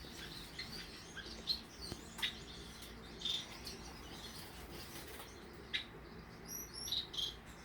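Several pet finches chirping, with short high calls and tweets scattered irregularly throughout.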